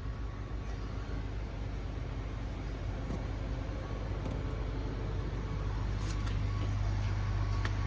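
Diesel truck engine idling: a steady low rumble that grows a little louder about six seconds in.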